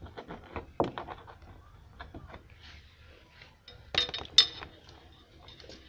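Light handling noises: small clicks and taps as the plastic rear-view camera and its cable are handled against the car's tailgate, with two sharper clicks about four seconds in.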